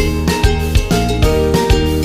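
Upbeat background music with a steady beat and sustained melody notes.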